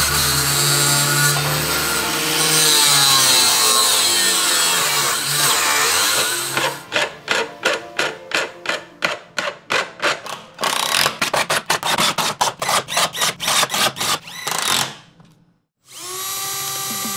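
DeWalt angle grinder in a cut-off stand cutting through a metal T-track, followed by quick back-and-forth strokes of a hand file on the cut end, about four strokes a second. After a short silence, a cordless drill starts boring into plywood near the end.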